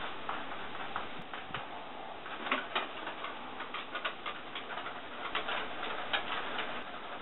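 3B graphite pencil scratching on a painted wall in short, irregular strokes, several a second.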